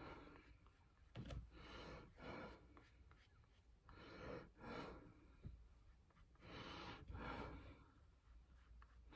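Near silence with faint breaths: three soft exhalations, each about a second long, a couple of seconds apart.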